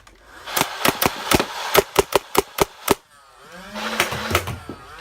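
Nerf Rival Nemesis blaster firing a rapid string of foam balls: about a dozen sharp shots in two and a half seconds over the whir of its flywheel motors. Then the motor whir carries on without shots, its pitch gliding and then steadying.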